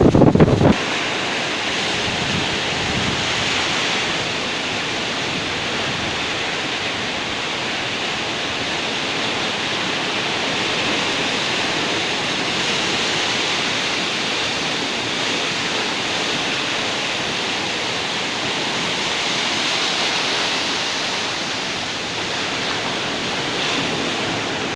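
Steady rush of heavy surf from high, wind-driven waves, swelling and easing slightly, with no separate crashes standing out. At the very start, a brief low rumble of wind buffeting the microphone.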